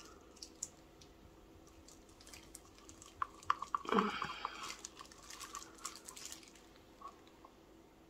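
Faint small clicks and taps of a wooden stir stick and silicone resin moulds being handled on a table, with a short busier cluster of clicks and a soft knock about four seconds in.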